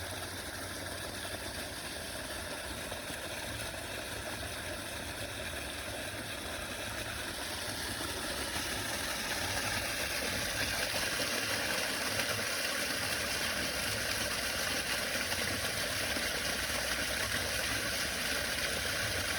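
Steady rush of irrigation water flowing, with a low, engine-like drone underneath; it grows louder about halfway through.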